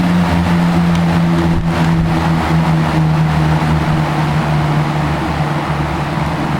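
Vintage McGraw Edison Tempmaster 16-inch metal box fan running on high: a steady low hum from its four-pole shaded-pole motor over the loud rush of moving air.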